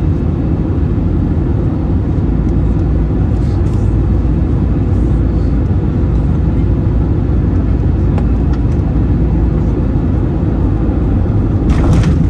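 Steady low rumble inside the cabin of an Airbus A321-200 airliner, with a brief rattle near the end.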